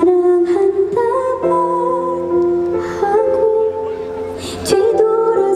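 A woman singing a slow Korean ballad live into a microphone over backing music, holding long sustained notes.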